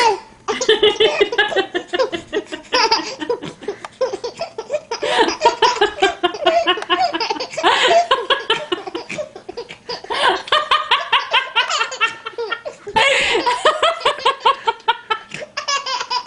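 Hearty laughter from a baby and his mother, in long runs of quick repeated bursts with a few short pauses for breath.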